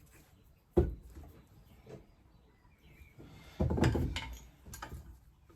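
Workshop handling sounds while fitting polyurethane bushes into a suspension top arm: a sharp knock about a second in, then a short patch of knocking and scraping about three and a half seconds in, with a few light clicks after it.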